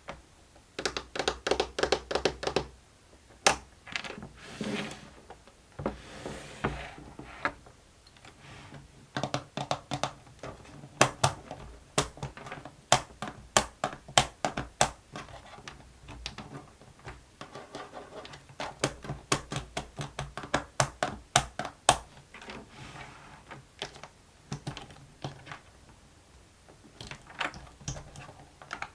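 Plastic fidget board toy being fiddled with by hand: quick runs of sharp plastic clicks and taps, like typing, with a couple of short rustling swishes in between.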